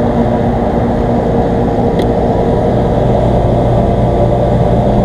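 Outdoor air-conditioning condensing unit running: a steady, loud compressor hum with a mains-frequency drone, while the condenser fan motor stays off. A faint click about two seconds in.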